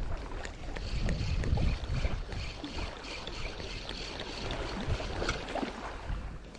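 Wind rumbling on the microphone, with scattered small clicks and a faint high steady tone in the middle of the stretch.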